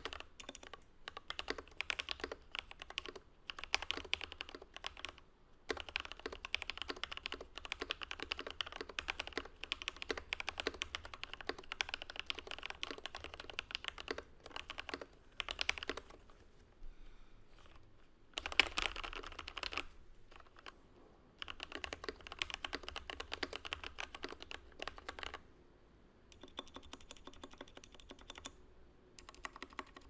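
Typing on a Skyloong GK87 mechanical keyboard fitted with lubed Gateron Yellow linear switches: fast runs of key clacks, broken by a couple of short pauses and going softer for the last few seconds.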